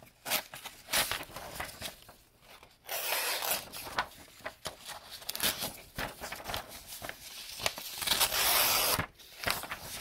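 A sheet of paper being sliced with a SOG Flashback Mini pocket knife's AUS-8 steel blade in a sharpness test, among paper rustling and handling; the cuts hiss, briefly about three seconds in and longer and loudest about eight seconds in.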